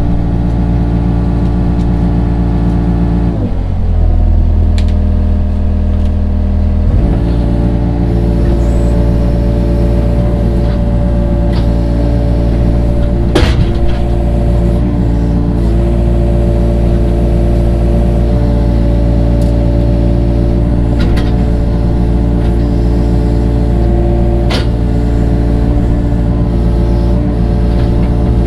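Digging machine's engine running steadily under load. About three and a half seconds in, its pitch drops for a few seconds, then comes back up. A few sharp knocks sound over it, the loudest about halfway through.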